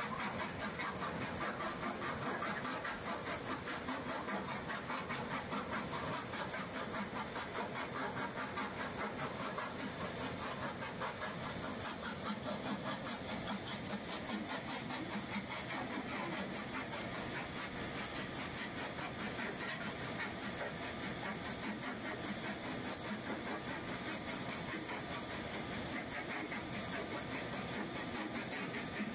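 A small gold ore processing plant running steadily: a vibratory feeder and belt conveyor carrying crushed ore. The sound is a steady mechanical drone with a fast, even pulse.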